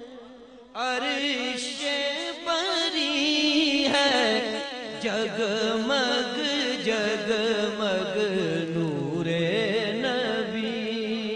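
A naat sung by a male voice: a long, wavering, ornamented melodic line that comes in strongly about a second in after a brief dip in level.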